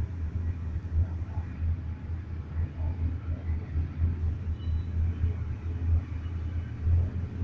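Low, uneven rumble inside a moving cable car cabin.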